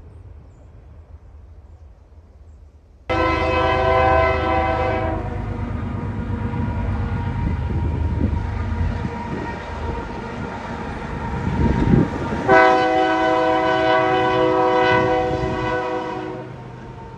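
Diesel freight locomotive's air horn sounding twice, a short blast about three seconds in and a longer one of about four seconds near the end. It sounds over the steady rumble of the locomotive and freight cars, which is faint at first and jumps up sharply when the horn first sounds.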